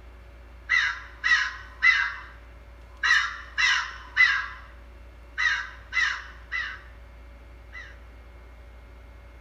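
A crow cawing: three caws in quick succession, repeated three times, then one faint caw near the end.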